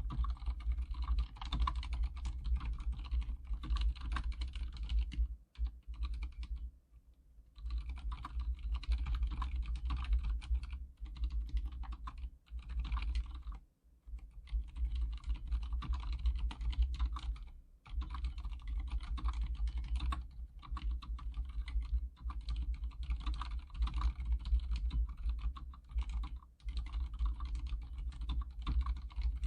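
Continuous typing on an Archon K79 full-size mechanical keyboard with silent red (linear, dampened) switches: a dense run of soft, muted keystrokes with short pauses about six, fourteen and eighteen seconds in. A steady low hum lies underneath.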